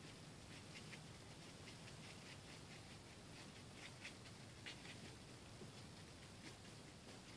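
Faint, irregular scratching of a paintbrush's bristles stirring paint on a paper plate, over quiet room tone.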